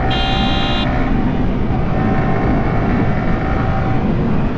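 Steady wind and engine noise of a sport motorcycle cruising along a road, heard from the rider's seat. A brief high beep sounds at the very start.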